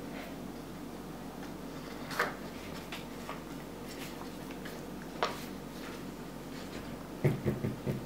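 Hands handling a paper card on a tabletop: a few separate soft knocks over a steady low room hum, then a quick run of thumps near the end as the hands press the paper down.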